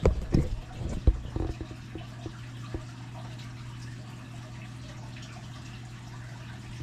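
A few sharp knocks or taps in the first second and a half, then only a steady low hum.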